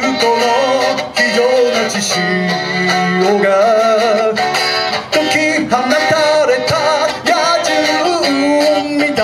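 A man singing a Japanese anime theme song live, accompanied on electric guitar and amplified through PA speakers.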